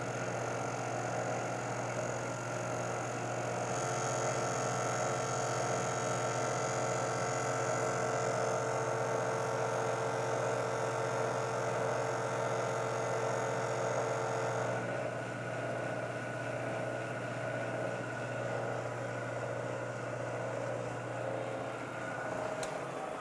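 Precision Matthews PM-949TV vertical milling machine with its 3-horsepower variable-speed head running steadily, with a motor hum and whine. A 3-inch carbide-insert face mill takes a light cleanup cut across an aluminum block under power feed. A higher cutting hiss joins about four seconds in and drops away about fifteen seconds in. The hum falls away near the end.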